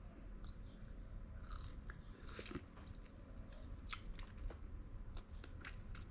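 Faint chewing of mangosteen flesh, with scattered small clicks.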